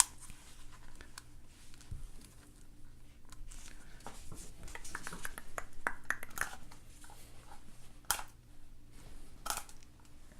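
Plastic toy packaging being handled and pulled open: scattered clicks and crinkling rustles, busiest about halfway through, with a few sharper clicks near the end.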